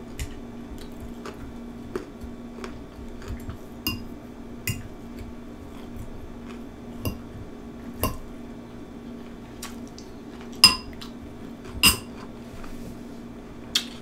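Metal fork clinking and scraping against a glass bowl of cucumbers in ranch dressing: about a dozen spaced, sharp clinks with a brief glassy ring, the loudest two near the end, over a steady low hum.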